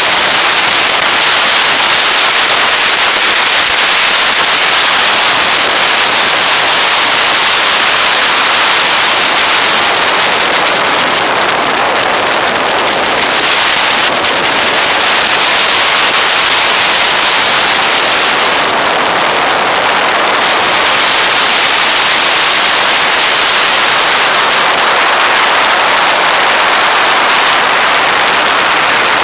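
Loud, steady wind rush buffeting the microphone of a camera on a motorcycle riding at speed, with road noise and little or no engine note showing through.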